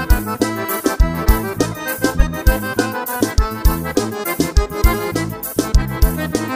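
Instrumental forró: an accordion playing the lead melody over bass and a steady, thumping beat.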